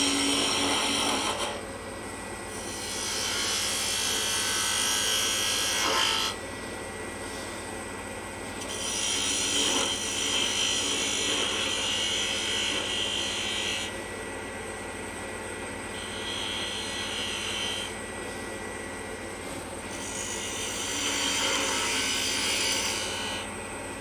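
Wood lathe spinning a small mahogany finial while a turning tool takes light cuts: four scraping, hissing passes a few seconds each, with the lathe's steady hum between them.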